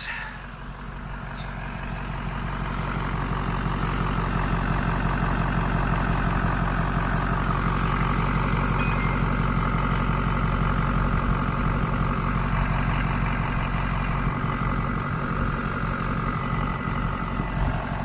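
Diesel pickup truck engine idling steadily just after a cold start, its glow plugs still switched on; it grows louder over the first few seconds, then holds an even idle heard close in the open engine bay.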